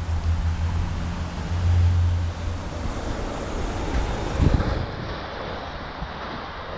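Steady rumbling noise, heavy in the low end, with a single knock about four and a half seconds in.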